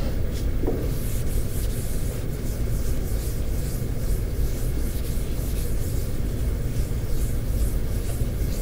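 Felt chalkboard eraser rubbing across a blackboard in repeated short back-and-forth strokes, about two or three a second, starting about a second in. Under it runs a steady low rumble.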